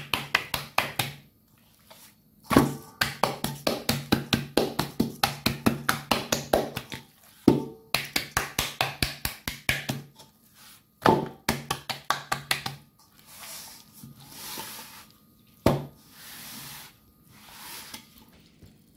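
Hands slapping and patting a seasoned raw pork leg in a stainless steel bowl, in fast runs of about five slaps a second with short breaks. Near the end the slapping gives way to softer rubbing and squishing as the seasoning is worked into the meat.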